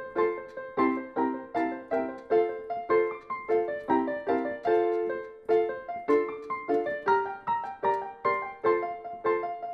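Background piano music: a steady, even run of struck notes, about two to three a second, each dying away.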